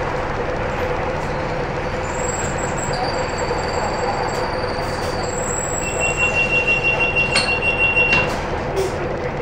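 Cabin noise of an Optare Versa single-deck bus under way: a steady rumble of engine and road with a constant hum, and thin high-pitched whines that come and go. About six seconds in the noise swells and pulses for a couple of seconds.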